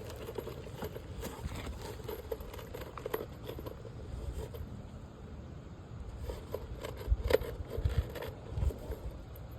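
Small clicks and taps of roofing nails and the shingle being handled, with a few louder dull knocks between about seven and nine seconds in.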